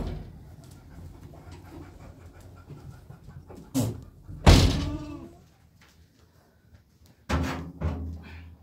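Goats bleating: a sharp knock right at the start, a short call a little before four seconds in, a loud wavering bleat just after, and another bleat near the end.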